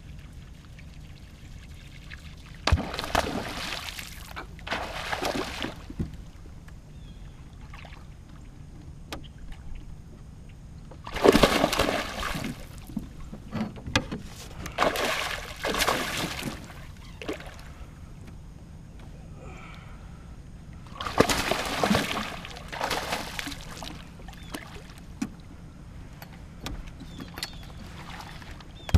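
A largemouth bass striking a topwater frog lure right at the boat and thrashing at the surface as it is fought and netted: several loud bursts of splashing a few seconds apart, the loudest about eleven seconds in.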